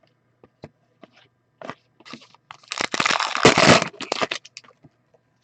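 Trading cards and their pack wrapper being handled: scattered light clicks and taps, then a loud crinkling rustle lasting about a second and a half, a little past halfway through.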